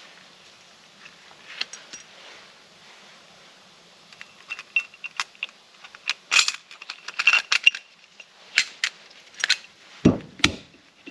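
Steel limited-slip differential parts clinking and clicking as the clutch plates and shims are stacked back into the carrier case: quiet handling at first, then a busy run of sharp metallic clinks, and two heavier thuds near the end as a case half is set down on the bench.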